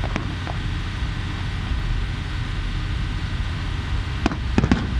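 Aerial fireworks shells bursting: a couple of bangs just after the start and a quick cluster of three near the end, over a steady low rumble.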